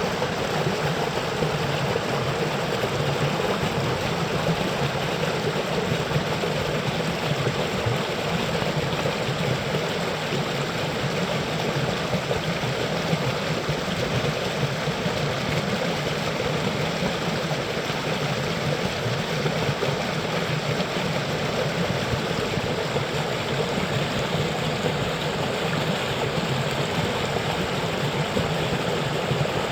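Cold water running steadily: an even rushing noise that does not change.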